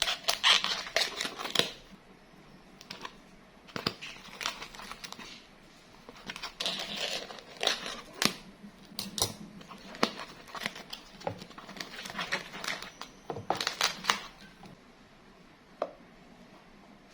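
Plastic crinkling and crumpling in irregular bursts as it is handled, with louder clusters near the start and again near the end.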